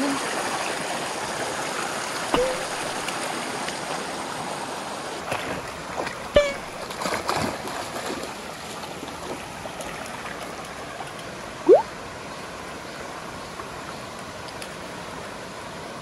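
Mountain stream running over rocks, with border collies splashing through the shallow water. The rush of water eases over the first half, a few short splashes come around the middle, and one brief rising squeak sounds near the end.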